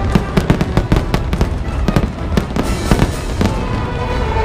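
Fireworks bursting in quick succession, many sharp bangs a second over a constant low rumble, with music playing beneath.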